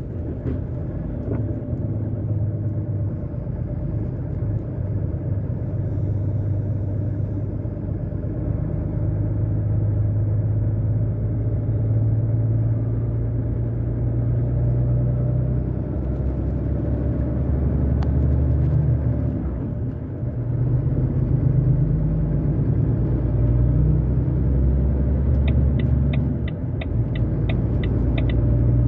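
Low, steady drone of a vehicle's engine and tyres, heard from inside the cab while driving along a motorway; the engine note shifts a few times. Near the end comes a run of about ten quick, even ticks.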